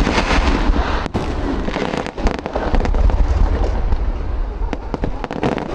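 Aerial fireworks display bursting: many sharp bangs and crackles in quick succession over a continuous deep rumble of booms.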